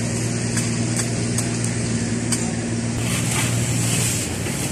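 A blade striking a green coconut on a wooden block: several light, sharp chops spaced about half a second apart in the first two and a half seconds. A steady low hum runs underneath.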